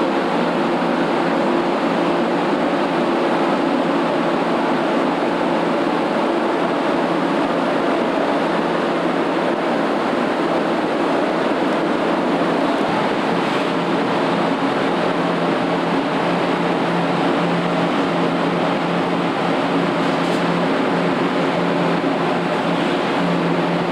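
Paint spray booth's ventilation fans running: a steady rush of air with a low hum underneath.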